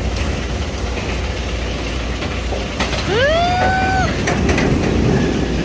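Steady low rumble of wind buffeting the microphone. About three seconds in, a woman gives one long, drawn-out 'wow' that slides up in pitch and then holds.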